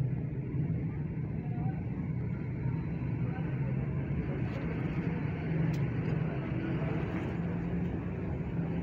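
Steady low hum and rumble of a busy frying stall, with oil frying in a large wok, and a couple of light clicks about halfway through.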